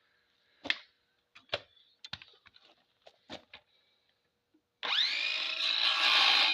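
A few light knocks and clicks as wood and tools are handled, then, about five seconds in, an electric saw's motor starts and spins up quickly to a steady whine.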